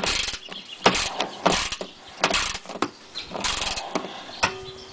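Ratcheting torque wrench driving a screw into a plastic engine splash shield: irregular short bursts of ratchet clicking as the handle is swung back and forth, with a few sharper clicks.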